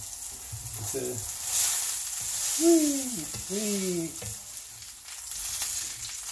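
Frozen burgers sizzling in a cast-iron frying pan, with a spatula scraping the pan as it goes under them to turn them. Partway through come two short voice-like calls that fall in pitch, the louder of them a little under three seconds in.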